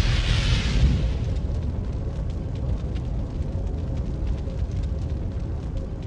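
Boom sound effect for an animated channel-logo outro: a loud low impact at the start whose deep tail slowly dies away over several seconds.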